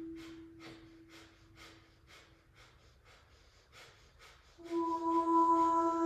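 Kundalini breath of fire: rapid, forceful exhalations driven by pumping the belly, about three a second. About four and a half seconds in, a louder steady musical drone note comes in over them.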